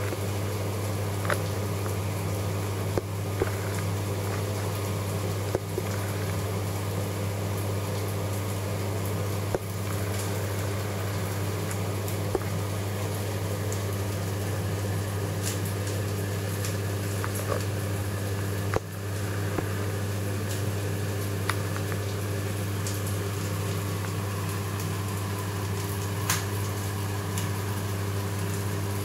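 Saltwater reef aquarium with sump running: a steady pump hum under bubbling, trickling water, with a few faint clicks.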